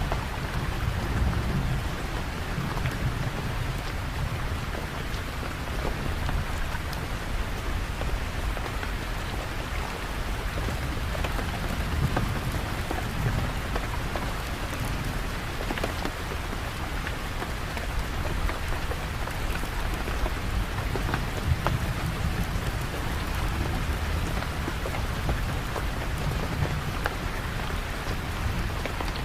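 Steady rain falling on a surface, with individual drops ticking throughout. Under it a low thunder rumble swells and fades several times.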